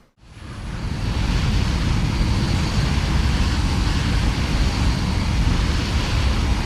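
Aeroplane in cruise flight: a steady drone of engines and rushing air with a heavy low rumble, fading in over the first second.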